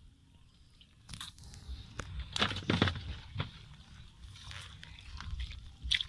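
Scattered crunches and scrapes of hands working in wet sandy soil around the pipes of a dug fish hole, the loudest cluster about two and a half seconds in.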